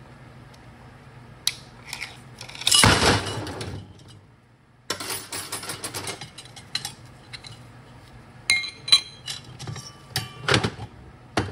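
Metal parts of an automatic transmission clutch drum clinking and scraping: a snap ring being worked out with a pick, then steel clutch hubs and clutch plates lifted out and knocking together. There is a scraping rattle about a second long near the start, then a flurry of small clinks, and a few clinks that ring briefly near the end.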